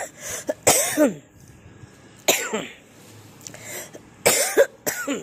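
A woman coughing four times in separate fits, the last two close together near the end; she says she is unwell.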